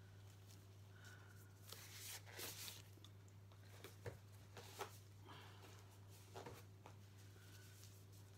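Near silence: room tone with a steady low hum and a few faint rustles and clicks.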